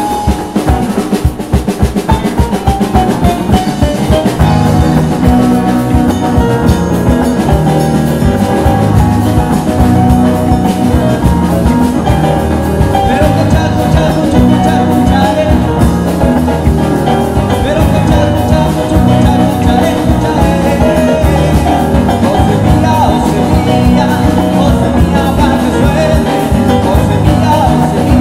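Live salsa band playing an instrumental passage: drum and cymbal struck with sticks, electric bass, hollow-body electric guitar and keyboard. The percussion plays nearly alone at first, and the bass and full band come in about four seconds in.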